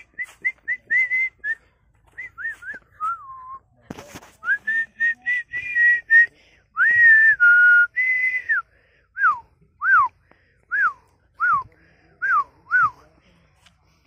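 A person whistling close by: a quick run of short notes, then longer held and gliding notes, then a string of short falling notes. A single thump about four seconds in.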